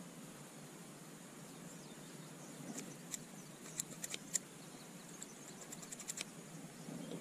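Faint, sharp clicks of small scissors snipping fishing line and being handled, in a cluster about three to four seconds in and another around six seconds, over a quiet hiss.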